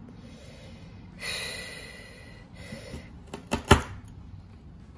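Large kitchen knife cutting through a thick Monstera stem: a scraping cut of about a second, a shorter one, then three sharp knocks, the last one the loudest.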